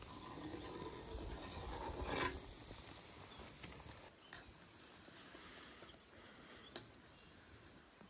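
Water with beef offal boiling hard in a cast-iron cauldron: a soft, steady bubbling with a few faint clicks, and a brief louder swell of noise about two seconds in.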